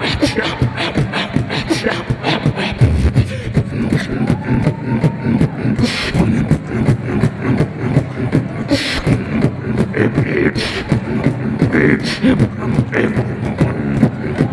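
Live beatboxing into a handheld microphone: a fast, unbroken beat of vocal kick, snare and hi-hat sounds, with a few short hummed glides now and then.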